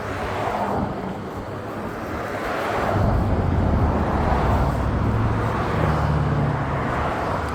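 Electric longboard riding on pavement: a steady roll and rush of the wheels, with wind on the microphone. The low rumble grows louder about three seconds in as the board picks up speed.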